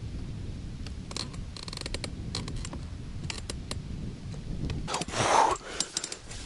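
Wind rumbling on the microphone, with scattered sharp clicks and creaks of fishing gear being handled and a short, louder rustle about five seconds in.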